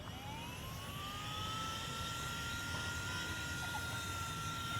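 Cordless handheld car vacuum cleaner with its extension nozzle fitted, switched on: the motor whine rises over about the first second and a half as it spins up, then holds a steady high pitch over a rush of air.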